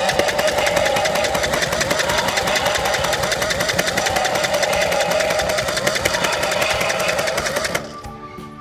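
Electronic sound effect from a toy truck's small built-in speaker: a harsh, buzzing growl with a wavering pitch and a fast, rattling pulse. It plays for about eight seconds and cuts off shortly before the end.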